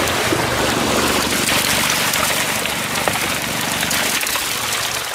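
Water gushing steadily out of a fish-stocking truck's tank discharge into the lake, carrying live trout, with a low steady hum of the truck running underneath.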